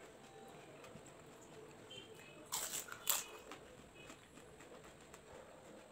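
Two short crunches about half a second apart, near the middle: crisp, hollow panipuri (golgappa) shells cracking as they are eaten.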